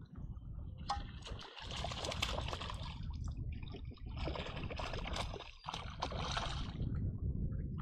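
A hooked bass thrashing and splashing at the water's surface beside the boat, starting about a second in, with a short pause just past the middle, over a steady low rumble.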